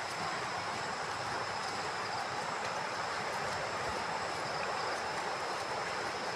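Steady rushing of a river in flood, full to the brim after heavy rains.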